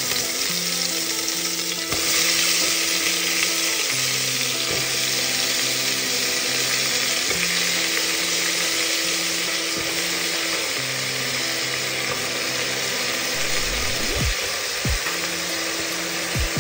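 Ghee sizzling in a pressure cooker as chopped vegetables are added for dalma, a steady frying hiss. Soft background music with slow, held low notes plays under it.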